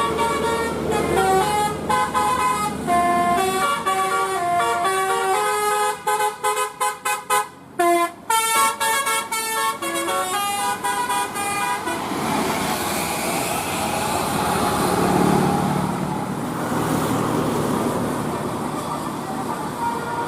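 Basuri telolet bus horn, a multi-tone electric horn, playing a quick tune of short notes stepping up and down, choppy and broken around the middle. It stops about twelve seconds in, leaving a steady rush of noise.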